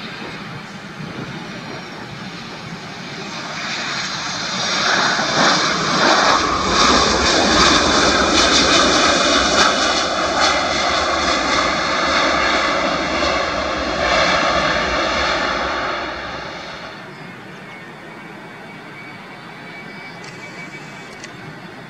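Boeing 737-800's CFM56-7B jet engines during landing and rollout: a rushing roar with steady whining tones. It swells over a few seconds, stays loud for about ten seconds while the plane slows on the runway with its spoilers up, then drops off sharply about three-quarters of the way in.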